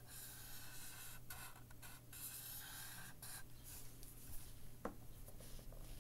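Writing by hand on a sheet of paper: faint scratchy strokes that come and go in short stretches, with a light knock about five seconds in.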